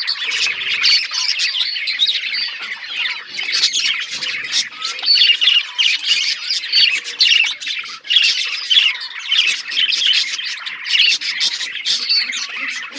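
A flock of budgerigars chattering without a break: rapid, overlapping chirps, warbles and squawks.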